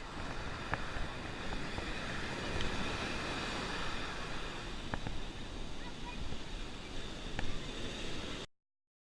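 Ocean surf washing on a beach, a steady rush of breaking waves with a few faint clicks; it cuts off suddenly near the end.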